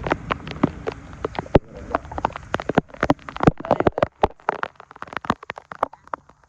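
Rain during a tropical storm, big drops striking close by as a quick, irregular run of sharp taps over a faint hiss.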